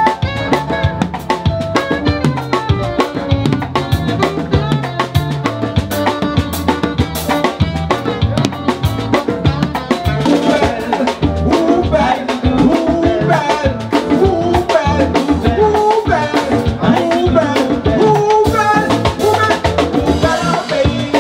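A live band playing an upbeat number, with a drum kit keeping a busy beat under the other instruments. Voices singing come in over the band in the second half.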